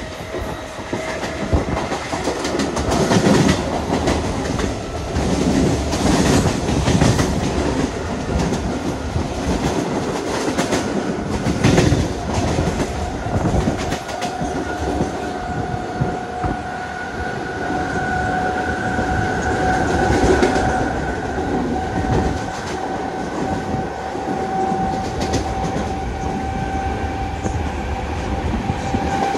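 Mumbai suburban local train (electric multiple unit) running, heard from inside the coach: wheels clattering over the rail joints, with a steady high whine coming in from about halfway through.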